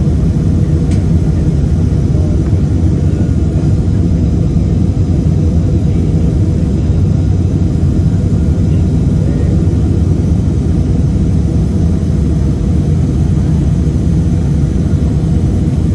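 Steady low rumble inside an Airbus A320 passenger cabin in flight: jet engine and airflow noise heard from a window seat.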